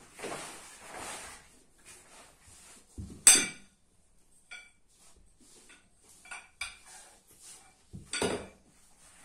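Camp bed fabric rustling as it is spread out, then the bed's metal frame tubes knocking together with a sharp ringing clank about three seconds in. Light clicks and taps follow as the tubes are handled, and a second clank comes near the end.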